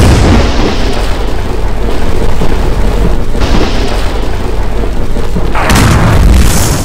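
Lightning and electric-discharge sound effect: a loud, continuous rumble with a crackling hiss over it, which swells again about six seconds in.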